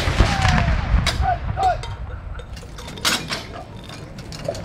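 Echo of an M5 3-inch gun's blank salute round dying away, with short shouted gun-crew commands. A sharp metal clank comes about three seconds in, then lighter clicks and knocks of the gun being worked.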